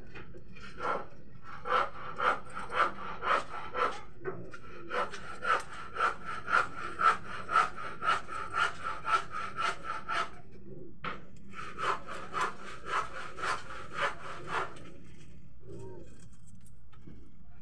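Hair-cutting scissors snipping through hair at about two snips a second. The snips stop for a second or so about ten seconds in, resume for a few more, then stop.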